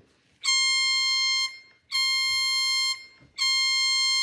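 The Bahamas' emergency alert alarm: a harsh, steady, buzzy tone in long beeps of about a second each with short gaps, three in a row.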